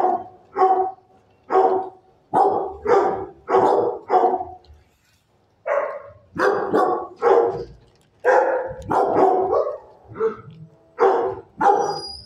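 Dog barking repeatedly, one bark every half second to a second, with a pause of about a second around five seconds in.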